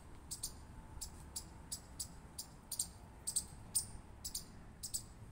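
Chipmunk giving a steady run of short, high-pitched chip calls, about three a second.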